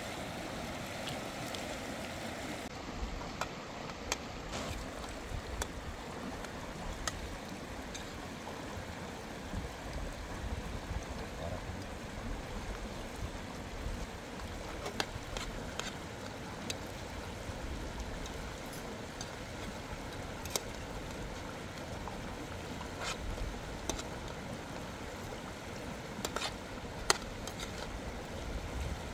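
Steady rush of running water, with scattered sharp clicks and ticks over it; the loudest click comes a little before the end.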